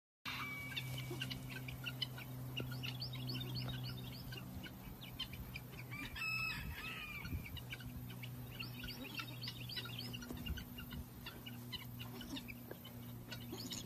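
Outdoor birds chirping in quick, repeated short notes, with one longer call about six seconds in, over a steady low hum.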